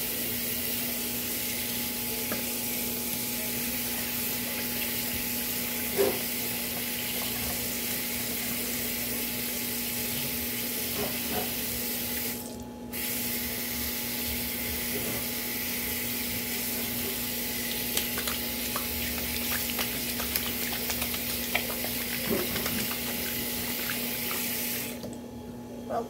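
Water running steadily from a tap into a sink, with a few light knocks. The flow stops briefly about halfway through and is shut off about a second before the end. A steady hum sits underneath.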